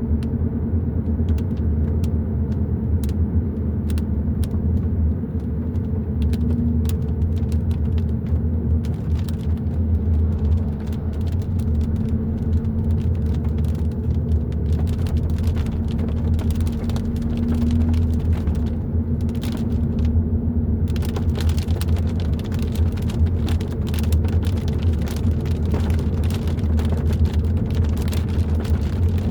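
Hyundai i30 N Line driving at a steady pace: a continuous low rumble of engine and road noise. Scattered sharp ticks run over it and become much denser about twenty seconds in.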